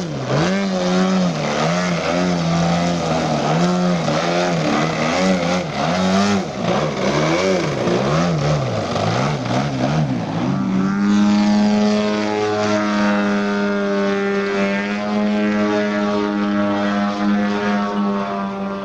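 Twin-cylinder DA 120cc petrol engine and propeller of a large radio-controlled Extra 300 aerobatic model, its throttle worked up and down during 3D manoeuvres so the pitch rises and falls every second or so. About ten seconds in it settles to a steady, unchanging note.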